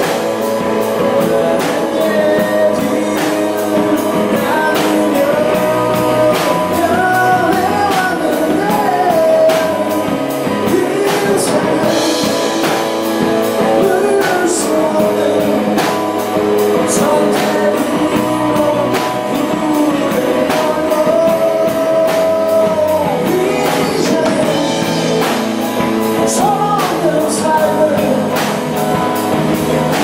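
Live indie rock band playing a song: a male lead vocal sings over electric guitar, a Korg PS60 stage keyboard and a drum kit keeping a steady beat.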